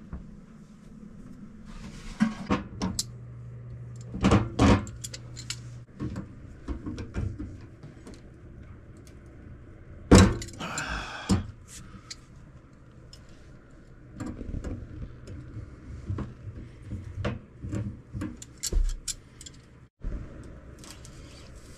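Metal hand tools, an adjustable wrench and a second wrench, clinking and knocking against the drain fittings under a galley sink as they are worked loose, with scattered clicks and a sharp knock about ten seconds in followed by a brief rattle.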